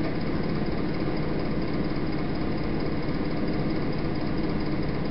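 A steady, engine-like hum with a fast rough pulsing that does not change at all, with no speech over it.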